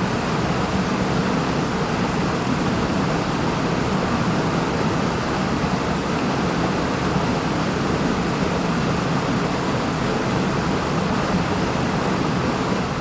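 Wind sound effect: a steady, even rushing of wind, beginning to fade out near the end.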